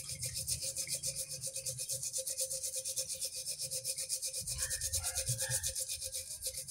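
A scouring pad scrubbing a paper label off a wet glass jar: rapid, even back-and-forth strokes.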